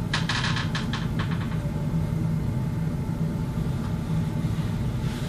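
A person sitting down into an armchair from a walker: a short run of rustling and light clicks in the first second and a half, over a steady low hum of room noise.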